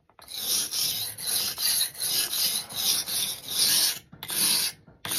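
Steel knife blade rubbed back and forth on a wet whetstone: a steady run of rasping scrapes, about three strokes a second, with a couple of short pauses between strokes near the end.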